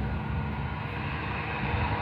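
Jet aircraft engines running, a steady rush with a thin high whine over an uneven low rumble.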